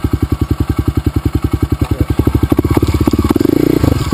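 Dirt bike engine running at low revs with an even, rapid beat of about a dozen firing pulses a second. About three seconds in the throttle opens briefly, the beat blurs into a smoother, louder note, and then it settles back to a slightly quicker beat.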